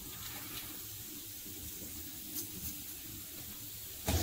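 Steady low hiss of a pan of rasam heating on a gas stove burner. There are two faint clicks in the middle and a dull knock near the end.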